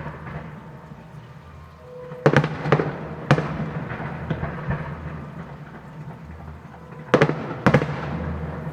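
Fireworks bursting: three sharp bangs about two to three seconds in and two more about seven seconds in, each with a rolling echo, over a steady low background.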